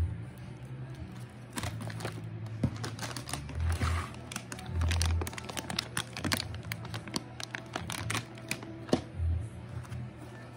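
Plastic snack-bag packaging crinkling and crackling as it is handled, with a few soft low thumps, over quiet background music.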